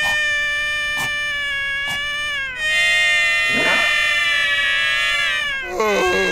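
Cartoon seal's voiced wail: two long, high held notes, the second a little louder, with a couple of small clicks during the first.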